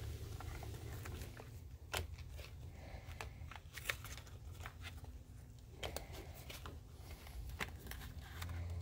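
Hands handling a plastic power side-mirror housing and its wiring: scattered light clicks and rustles as the wires are fed back through, over a low steady hum.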